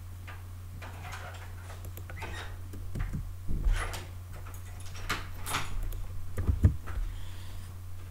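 Scattered mouse clicks and key presses on a computer, a few short clicks and knocks over a steady low electrical hum.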